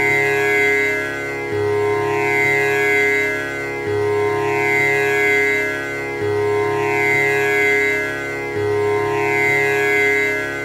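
Tanpura drone: its strings are plucked in a steady repeating cycle, the low string coming back about every two and a half seconds. The sustained tones ring with overtones that sweep through each cycle.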